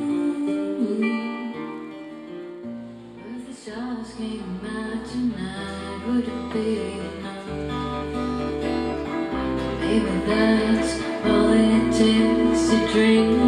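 Live band playing an instrumental passage: acoustic guitar with held melody notes, bass notes and light cymbal hits coming in about four seconds in. The music dips briefly, then builds and grows louder toward the end.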